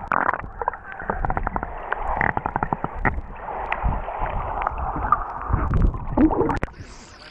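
Muffled underwater sound picked up through a GoPro's waterproof housing: water gurgling and sloshing, with many small clicks and knocks. Near the end the camera comes out of the water and the sound turns quieter and thinner.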